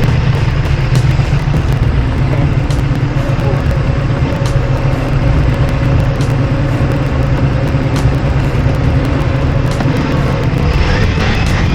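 Ducati Multistrada V4S ridden at a steady speed: engine running evenly under wind and road noise, without revving.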